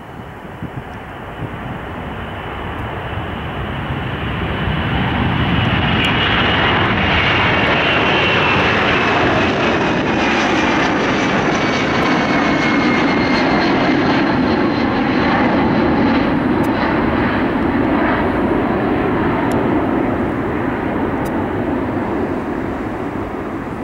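Boeing C-17 Globemaster III's four Pratt & Whitney F117 turbofans at takeoff power. The jet noise swells over the first few seconds, holds loud with a high whine sliding downward in pitch, then slowly fades.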